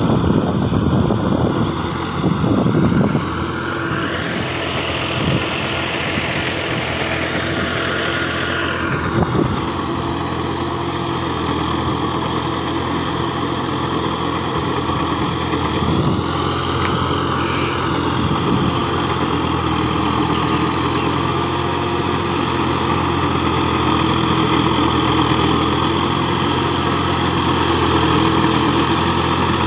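Tractor's diesel engine running steadily under load as it drags its tillage implement through a flooded rice field to puddle the soil, growing gradually louder as it approaches.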